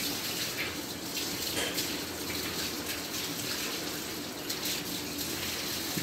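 Water running steadily from a hose and splashing onto a wet concrete floor.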